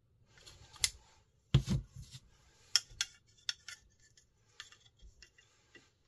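Folding pocket knives handled in the hands: a run of sharp clicks and light knocks as the knives are shuffled and set against each other, over faint rubbing of skin on the handles. The loudest is a knock with a low thump about one and a half seconds in.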